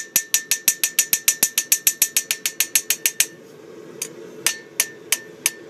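Hand hammer striking a hot steel knife blade on an anvil in quick, even blows, about six a second, with the anvil ringing a steady tone under them. About three seconds in the rapid hammering stops, and after a short pause a few slower, spaced blows follow.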